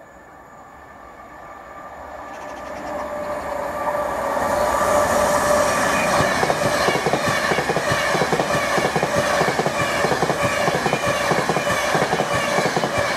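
Virgin Trains Class 390 Pendolino electric train approaching and passing through the station at speed. The sound builds over the first four or five seconds, then holds loud with a rapid clatter of wheels over the rail and a few steady whining tones.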